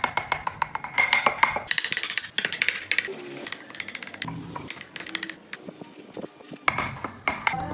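Music with rapid, irregular clicking and clinking.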